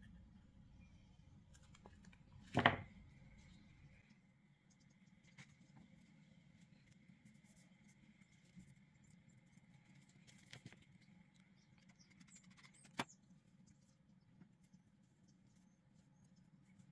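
Quiet hand handling of a ribbon being glued and pressed onto a headband base: small faint rustles and ticks, with a short knock about two and a half seconds in and a sharp click about thirteen seconds in.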